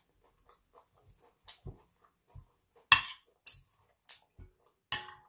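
Metal cutlery clinking and scraping against a plate as chicken is cut with a knife: a string of short, sharp clinks, the loudest about three seconds in, one near the end ringing briefly.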